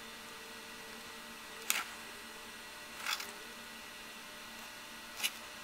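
Three short, light clicks a second or two apart over a faint steady hiss: small handling noises of a fine paintbrush and fingers against a small plastic model part being painted.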